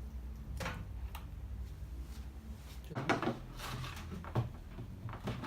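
Scattered clicks, knocks and rattles of parts being handled on a microwave oven under repair, over a low steady hum.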